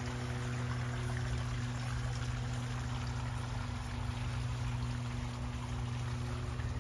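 Water splashing and trickling over rocks into a garden pond, a steady rushing sound, under a constant low hum.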